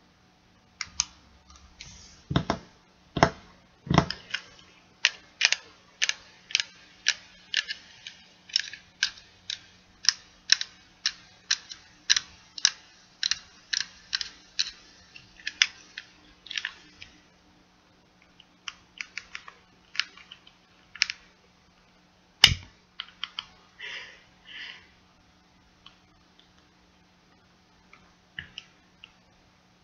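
Long-reach utility lighter's trigger clicked over and over, about two sharp clicks a second. The clicks then slow and thin out, with one louder, sharper click about two-thirds of the way through.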